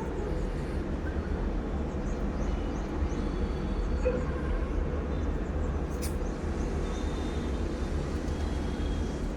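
Steady low rumble of outdoor background noise, with a few faint high chirps early on and a single sharp click about six seconds in.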